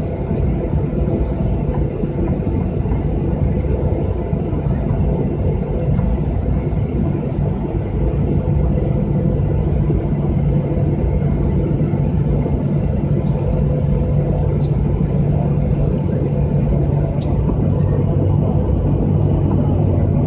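Steady engine hum and rumble heard inside the cabin of a jet airliner while it taxis, with a slight swell in level about eight seconds in.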